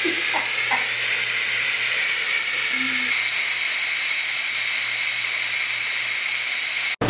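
Ninja Foodi pressure cooker's release valve venting steam in a steady loud hiss as the pressure is let off after cooking. It cuts off abruptly near the end.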